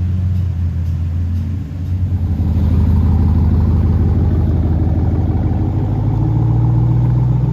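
Car engine running while driving, a steady low drone with road rumble that climbs in pitch about six seconds in as the car speeds up.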